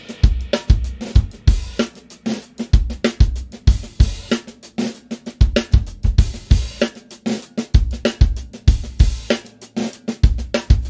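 Drum kit playing a steady groove: bass drum and snare hits with cymbal and hi-hat, struck in an even rhythm.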